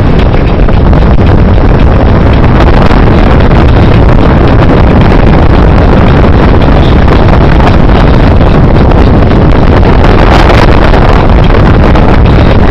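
Speedboat running fast across open water, with heavy wind on the microphone covering everything in a loud, steady rush.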